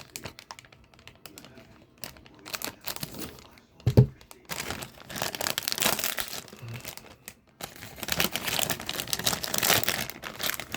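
Hot Wheels Mystery Models blind-bag packaging being torn open and crinkled by hand to get the toy car out, with one loud thump about four seconds in.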